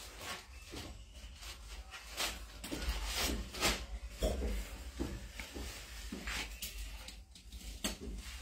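Irregular rustles and small clicks of handling: tissues drawn from a box and plastic cupping cups being handled, over a steady low hum.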